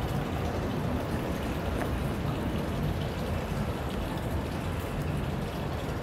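Steady rain falling.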